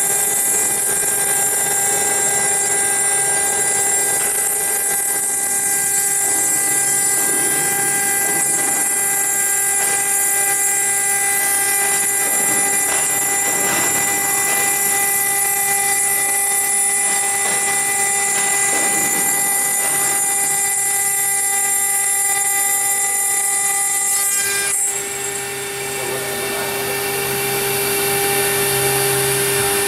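Stone CNC router spindle running at a steady high whine while its bit engraves a wet stone slab, over a rushing cutting noise. Near the end the sound dips briefly and carries on at a changed pitch.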